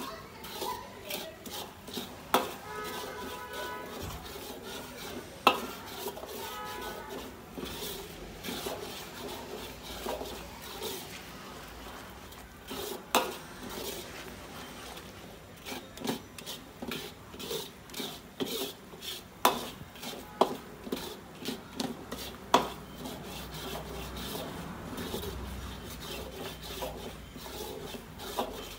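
Metal ladle stirring and scraping thick chilli-bean sauce round a large iron wok, a steady rasping with sharp clanks every few seconds where it knocks the wok's side.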